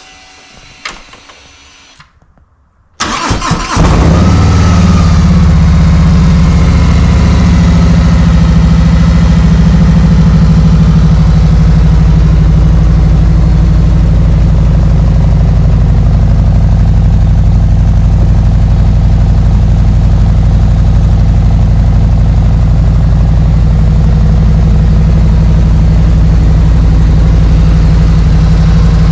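A Harley-Davidson Road Glide's Milwaukee-Eight V-twin, fitted with S&S MK45 slip-on mufflers, is started after a few faint clicks. The starter cranks and the engine catches about three seconds in, then settles into a loud, steady, deep idle through the aftermarket mufflers.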